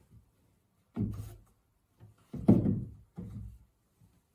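Wooden-framed canvas panel knocking against the wall as it is fitted onto its hanger: three dull thuds, the loudest in the middle, about 2.5 seconds in.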